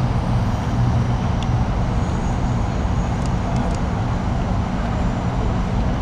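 Steady low rumble of city traffic noise, even throughout.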